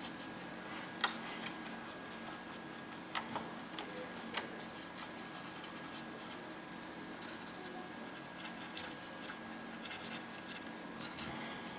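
Faint, scattered light clicks and taps of small tools and objects being handled at a modelling workbench, over a steady faint hum.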